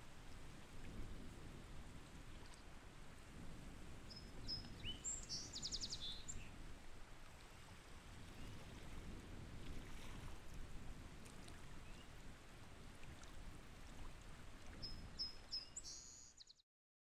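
A small songbird sings twice, each song a few high thin notes running into a buzzy trill, over a low steady rumble of outdoor background noise. The sound cuts off suddenly near the end.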